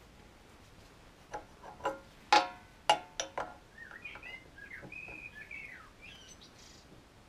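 An open-ended spanner clinking on brass fuel-pipe union nuts as they are nipped up, about six short metallic clinks with a brief ring, the loudest about two and a half seconds in. Then a small bird chirps for about two seconds.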